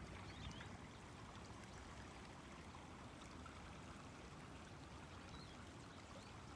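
Faint, steady flow of a shallow creek running over gravel bars.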